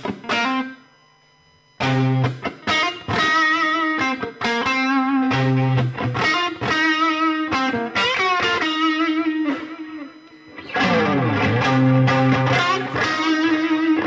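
Electric guitar, a Fender Japan, played through a Digitech RP255 multi-effects processor on a distorted drive patch into a Marshall MG15 amp, over a backing track. The playing stops briefly about a second in, then resumes. Near eleven seconds in there is a swooping fall and rise in pitch.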